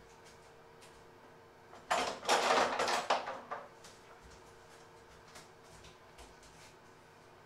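A burst of clattering and rustling as things are handled in the kitchen, starting about two seconds in and lasting about a second and a half, over a faint steady hum.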